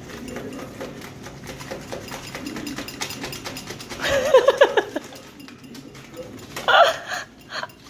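Blue-and-gold macaw chewing and tearing paper on a shreddable bird toy with its beak: a rapid run of small clicks and crackles. Two short vocal sounds break in, one about halfway and a shorter one near the end.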